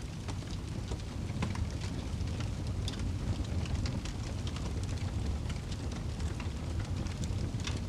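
Logs burning in a fireplace: a steady low rumble of flames with frequent sharp crackles and pops from the wood.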